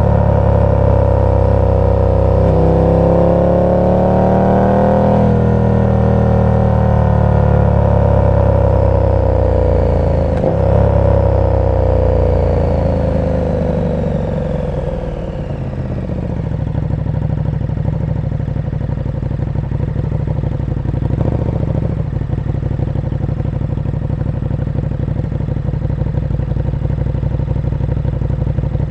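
KTM 1290 Super Duke R's V-twin engine through an aftermarket exhaust: revs climb for the first few seconds, then fall steadily as the bike rolls off and slows, and it settles into a steady, lumpy idle for the second half. A sharp click sounds about ten seconds in.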